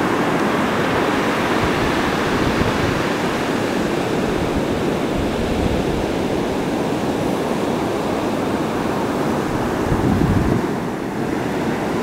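Heavy ocean surf, waves breaking and churning into foam, heard as a steady rushing noise with wind on the microphone. The noise dips briefly near the end.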